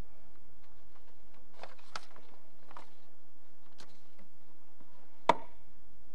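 Low steady room hum with a few faint scattered ticks, then one sharp click about five seconds in: handling noise at a lectern picked up by a handheld microphone.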